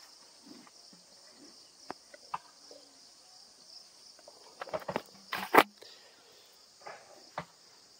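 A steady, high-pitched insect chorus from the field, with scattered clicks and knocks. The loudest knock comes about five and a half seconds in.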